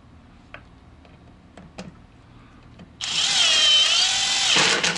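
Kobalt 24-volt cordless drill on its top speed setting driving a screw. A few faint clicks first, then about three seconds in the motor starts up loud and whines, its pitch dipping and rising under load as the screw is driven right through the wood.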